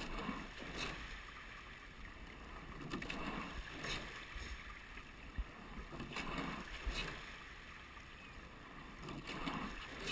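Rowing eight under way at a steady warm-up rate: each stroke brings a swell of water sound with a few sharp clicks from oars and rigging, coming round about every three seconds over a steady hiss of water and wind.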